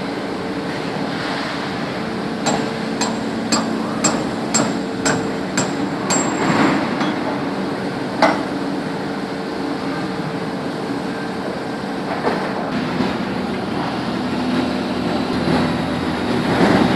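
Truck-frame riveting line: a steady machine drone with a run of about eight sharp, ringing metal-on-metal strikes, roughly two a second, a few seconds in, then single knocks later on.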